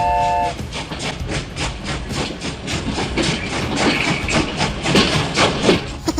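A train horn sounds a short chord blast, then a train runs on with a quick, even clickety-clack of wheels over the rail joints and a steady hiss.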